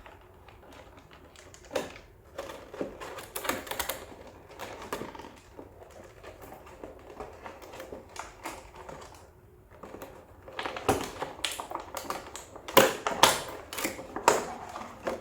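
Box packaging being handled: irregular clicks, taps and rustles, busiest and loudest in the last few seconds.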